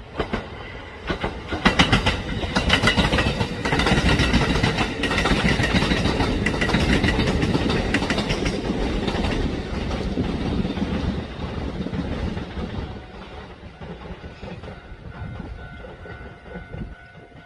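Train running on rails, the wheels clicking rapidly over the rail joints, loudest in the first few seconds and then gradually fading. Near the end a steady high-pitched tone joins in.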